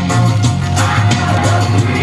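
Loud rock music with drums, guitar and singing.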